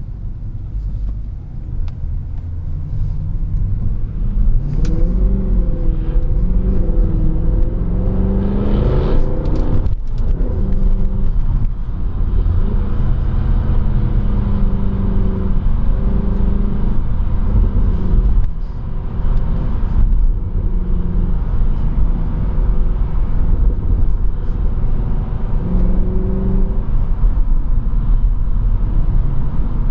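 Mercedes-Benz C63 AMG (W204) 6.2-litre V8 heard from inside the cabin while driving: the engine note climbs under acceleration from about four seconds in and is loudest around nine seconds, then settles into a steady cruising note with a brief dip in level near the middle.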